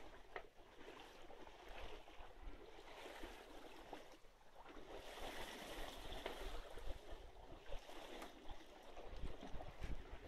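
Faint, steady rush and lap of water along the hull of a small wooden Mälar 22 sailboat under sail, with light wind; it swells a little around the middle.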